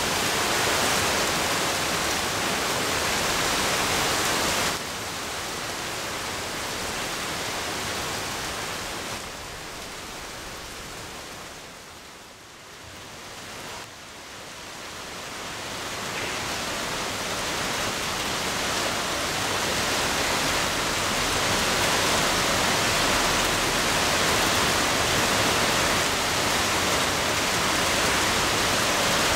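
Heavy rain pouring down, a steady hiss of falling water. It drops abruptly about five seconds in, fades lowest around the middle, then builds back up to a full downpour.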